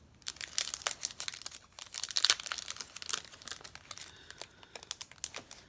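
Clear plastic packaging crinkling as a small packet of planner sticker tabs is handled in the fingers, with irregular crackles that are loudest about two seconds in.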